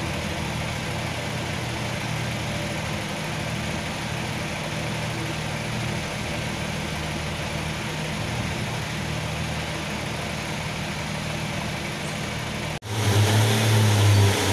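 Pacer diesel railbus's underfloor engines idling steadily at the platform. After a sudden break about 13 seconds in, a Pacer's diesel engine runs much louder and closer as the unit moves.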